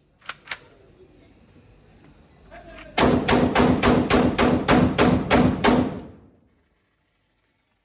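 A short-barrelled Saiga .308 semi-automatic rifle fired rapidly, about a dozen shots at roughly four a second. Two sharp clicks come shortly before the string of shots.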